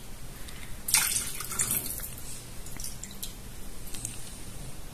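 Water poured from a glass jug through the lid opening into a Thermomix's stainless-steel bowl, trickling and splashing, with a stronger pour about a second in.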